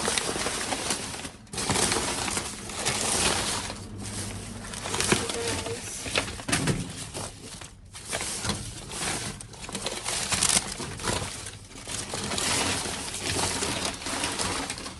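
Rummaging through trash in a dumpster: bags, papers and discarded items rustling and knocking together in uneven bursts, with a few sharper knocks.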